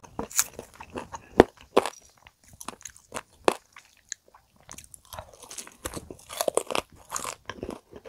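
Close-up crunching and chewing as a crispy fried chicken drumstick coated in caramel sauce is bitten and eaten. The crisp crunches come in irregular bursts, thin out a couple of seconds in, then turn dense again in the second half.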